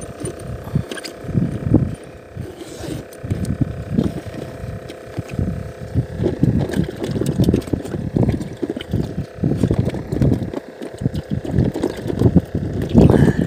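An engine humming steadily, with irregular low rumbles and thumps over it.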